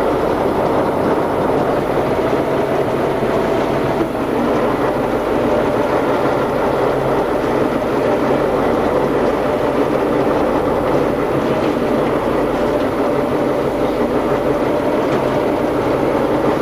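Tatra 813 Kolos's air-cooled V12 diesel and drivetrain running steadily and loudly, heard from inside the cab as the truck drives over rough off-road ground.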